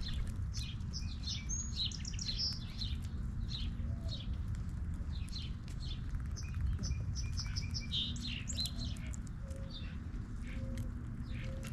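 Small birds chirping: many short, high chirps in quick succession, over a steady low rumble.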